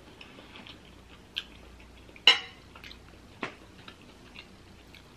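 Metal fork clinking against a plate, a few separate clicks with the loudest just over two seconds in.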